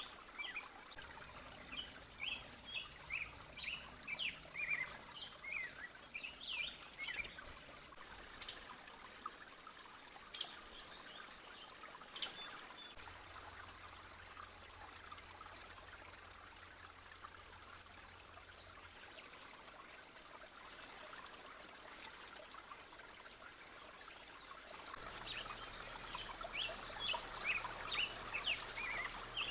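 Small songbirds chirping over the faint trickle of a creek: a quick run of short chirps for the first several seconds, a few sharp, high single notes through the middle, and a busier burst of chirping near the end.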